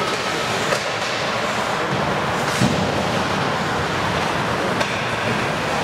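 Ice hockey game in play: steady rink noise of skates scraping on the ice, with a few sharp knocks of stick and puck, the strongest about two and a half seconds in.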